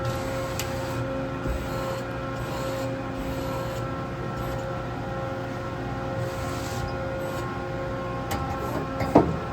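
Takisawa TCN-2000 CNC lathe running: a steady mechanical hum with several steady whining tones over it. A short, sharp clunk comes near the end.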